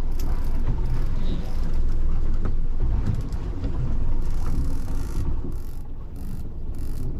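Boat motor running at low speed with wind on the microphone, and the mechanical clicking of a fishing reel being wound in on a hooked bluefin tuna.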